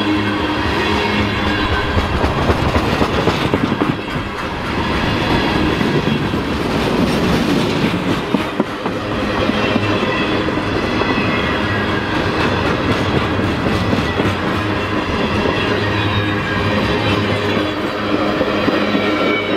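A train running past at close range: a continuous rumble of steel wheels on rail, with clickety-clack over the rail joints and some steady tones mixed in.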